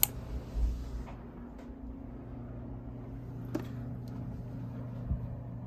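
Steady low mechanical hum with a few faint clicks, and a brief low rumble of wind on the microphone about half a second in.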